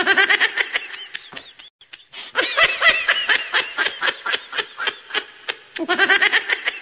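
High-pitched laughter in rapid ha-ha pulses. It thins out briefly about two seconds in, then comes back strongly and rises again near the end.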